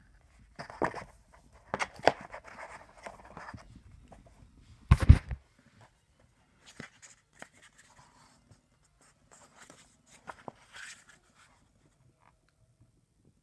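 Handling of a softcover sketchbook: paper and card rustling and clicking in the hands, one heavy thump about five seconds in, then lighter rustles and taps as its pages are opened and turned.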